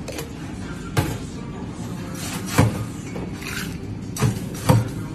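Metal cocktail shaker and glassware knocking and clinking on a bar counter as a drink is strained and served: four sharp knocks, one about a second in, one in the middle and two close together near the end, the last the loudest.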